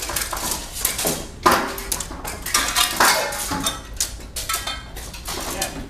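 Steel swords and armour clashing and clattering as several fencers fight a cut-and-thrust melee: many quick, irregular metal strikes, the loudest about a second and a half in.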